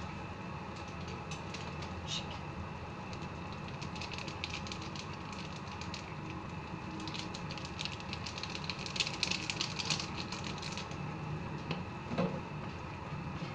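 Chicken curry simmering in a pan, a steady hiss with a patter of small popping bubbles that grows denser for a few seconds past the middle. A spoon stirs the pan near the end.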